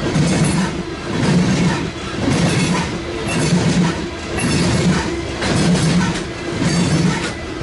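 Freight train cars rolling past at speed, their wheels clacking over the rail in a rhythm that swells about once a second.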